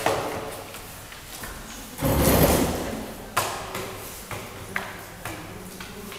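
Paper ballot sheets rustling and being shuffled by hand on a table, with a louder rush of handling about two seconds in and a few sharp taps after it.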